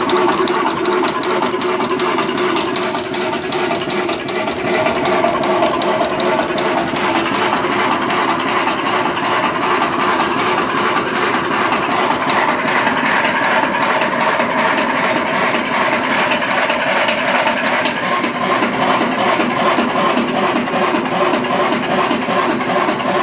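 Home-built electric drum coffee roaster running: the motor spins the drum with a steady mechanical whir and a fast, fine rattle. The builder links the rattle to the drum shaft and its collar, run without a proper bearing shaft.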